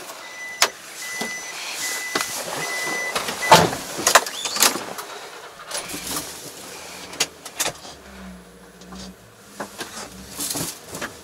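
Knocks and clatter as someone gets into a small Japanese kei pickup truck, with a short run of high beeps near the start. The truck's small engine then runs as it pulls away, with a low hum clearest near the end.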